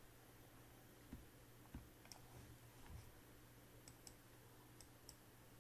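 Near silence with room hum, broken by a few faint, sharp clicks, some in quick pairs, and a couple of soft low thumps.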